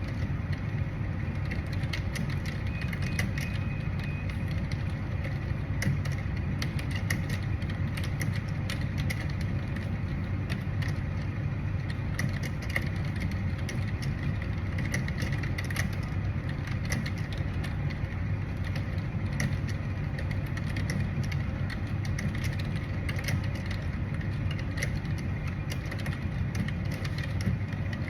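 Computer keyboard typing at about 49 words per minute: fast, irregular keystrokes clattering without pause, over a steady low rumble.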